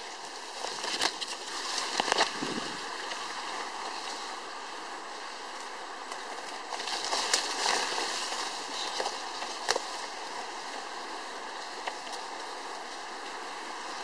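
Leaves and brush rustling and crackling as someone pushes through dense undergrowth, leaves brushing the camera, with louder bursts of crackling about one and two seconds in and again around seven to eight seconds, over a steady rushing noise.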